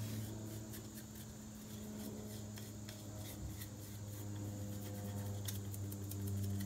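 Faint scraping and small ticks of wood glue being spread by hand onto a thin wooden strip, over a steady low hum.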